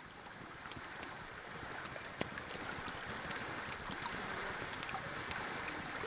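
River water running over rocks in a steady rush that swells in over the first couple of seconds, with scattered faint clicks through it.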